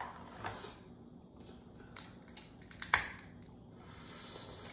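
Crab leg shells cracked and snapped apart by hand: a few sharp cracks, the loudest about three seconds in.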